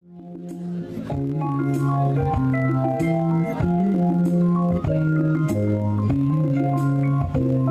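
Jazz band playing slow, held chords that change every second or so, swelling in from silence over the first second, with light cymbal strokes on top.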